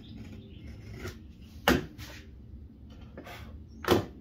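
Two sharp knocks about two seconds apart, with fainter knocks and handling sounds between them.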